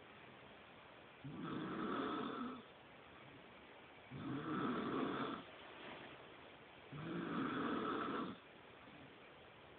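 A person snoring loudly and rhythmically: three long snores, one about every three seconds, with quieter breathing in between.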